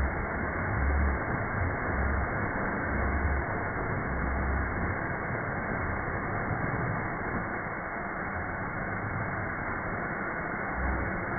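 Compressed air hissing steadily from an air hose, slowed down so it sounds low and dull. A deep pulse comes about once a second for the first few seconds and again near the end.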